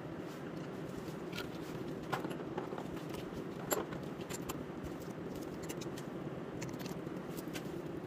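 Scattered light clicks and clinks from hands and tools working on a car's front brake caliper, over a steady background hum, with two sharper clicks about two and three and a half seconds in.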